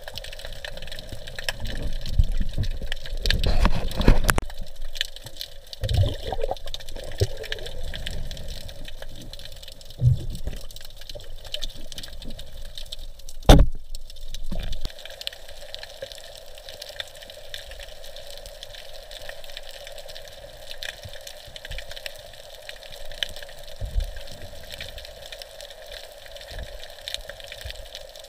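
Underwater water noise around a diver's camera, with fine steady crackling. Low muffled thumps come in the first ten seconds, and one sharp click, the loudest sound, comes about halfway through.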